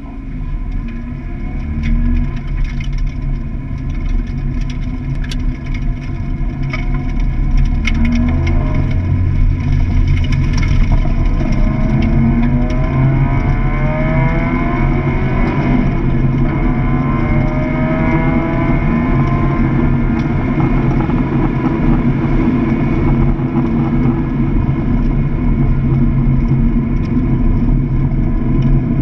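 Mazda Miata's four-cylinder engine heard from inside the cabin at track pace, its pitch rising and falling as the driver accelerates hard and lifts. A few sharp ticks come in the first ten seconds.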